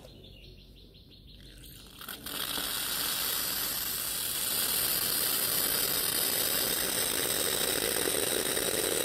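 Coffee press being plunged: a steady hiss of air and coffee forced through the filter starts about two seconds in and grows louder a couple of seconds later.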